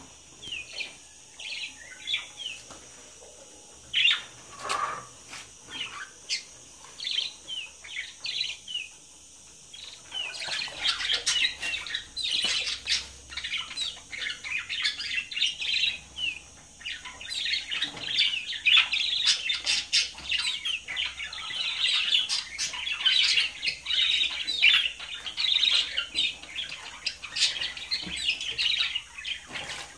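Caged budgerigars chirping and chattering: scattered short calls at first, then a dense, continuous chatter of many birds from about a third of the way in.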